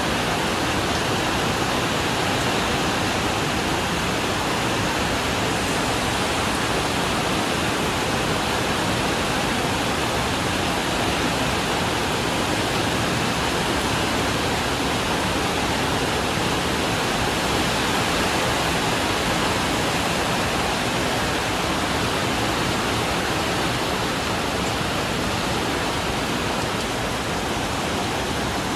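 Steady rain falling on and around a corrugated iron porch roof, a dense even hiss with no single drops standing out.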